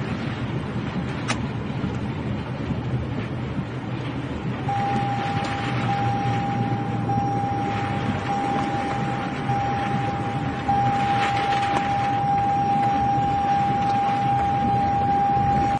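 Tornado-force wind blowing hard over the microphone, a dense rushing rumble. About five seconds in, a steady single-pitched tone joins it and holds, and the noise grows a little louder near the end.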